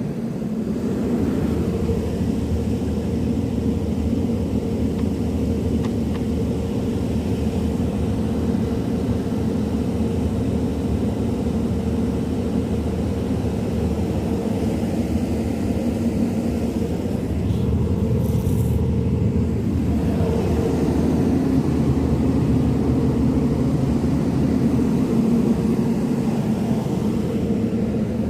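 Steady low rumble with a constant hum running through it.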